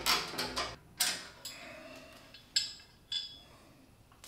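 Metal clinking as a steel support bracket is unbolted from the base of a Laguna C|Flux 1 dust collector and its parts are set down: quick clicks in the first second, then a few separate sharp clinks with brief ringing, stopping about three seconds in.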